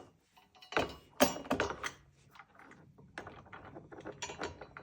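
Metal knocks and clicks of a crash bar and its bolt being handled and fitted to the scooter: two sharp knocks about a second in, then lighter scattered clicks and taps.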